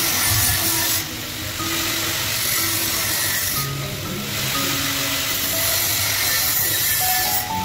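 Angle grinder with a cut-off disc cutting through flat steel bar, a steady hissing grind that dips briefly a couple of times as the disc lets up, with background music.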